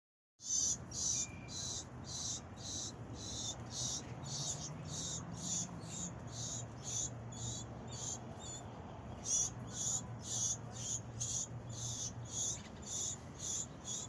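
Insect chirping in a steady rhythm, about two short high-pitched chirps a second, over a faint low hum.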